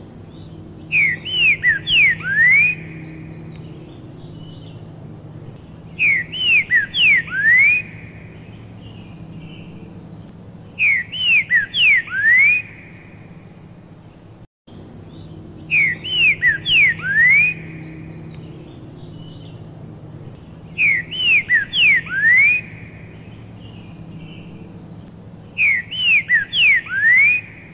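Pixarro (green-winged saltator) singing: a short phrase of loud, clear, slurred whistles, repeated six times at regular intervals about five seconds apart.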